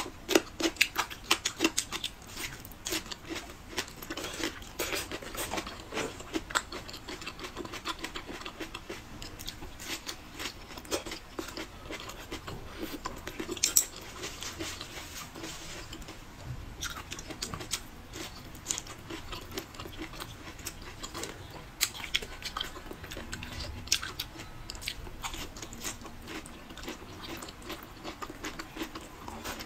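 Close-miked chewing of soft cooked food, blistered peppers and braised pork ribs: a dense run of small wet mouth clicks, with one louder click about fourteen seconds in.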